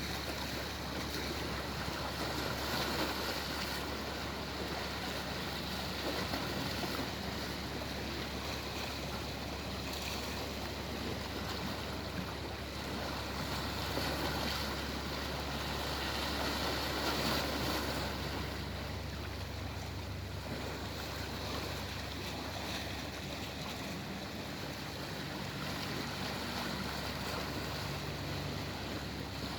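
Sea waves breaking and washing ashore, swelling and easing every few seconds over a steady low rumble.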